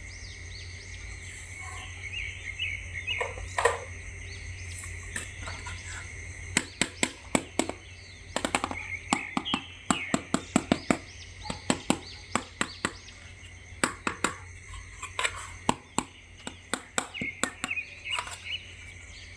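Many sharp, irregular clicks and taps from a plastic action figure being handled, bunched from about six seconds in until near the end, over a steady hum with birds chirping in the background.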